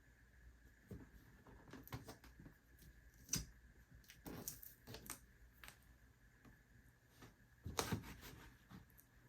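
Packaging being handled and opened by hand: scattered taps, clicks and short rustles, with a louder knock about three seconds in and a cluster of louder taps near the end.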